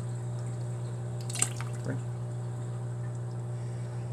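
Liquid splashing into a bucket of water: one sharp splash about a second and a half in, then a softer one, over a steady low hum.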